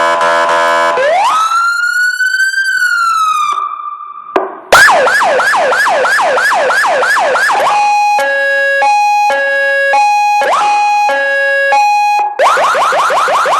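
HA990 vehicle electronic siren amplifier sounding through its speaker and stepping through its tones. A brief buzzy horn blast comes first, then one slow rising-and-falling wail. About five seconds in comes a rapid yelp of about three upward sweeps a second, then an alternating two-tone hi-lo, and near the end the fast yelp returns.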